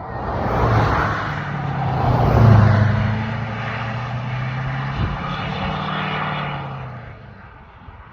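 A motor vehicle passing close by on the road: engine hum and tyre noise swell over the first two seconds or so, hold, then fade away near the end.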